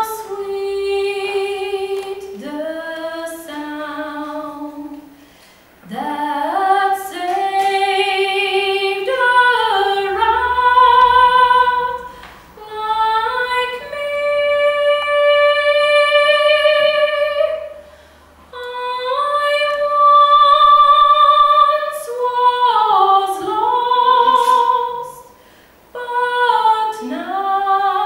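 A woman singing solo in a trained classical style, unaccompanied: long held notes in phrases of about five seconds, with short breaks for breath between them.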